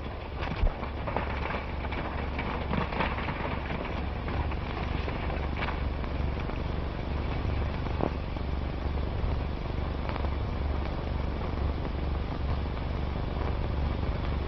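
Old film soundtrack hiss and crackle over a steady low hum, with a few faint clicks.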